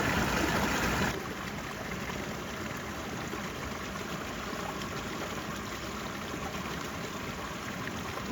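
Mountain creek water rushing and splashing steadily; the sound drops suddenly to a quieter, softer flow about a second in.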